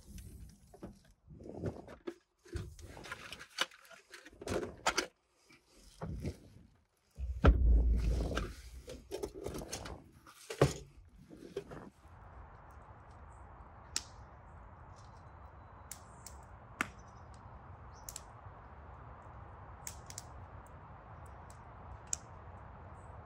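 Irregular knocks, clatter and thuds of things being handled, with one heavy thump about seven seconds in. About twelve seconds in it changes abruptly to a steady hiss with a few sharp, widely spaced clicks.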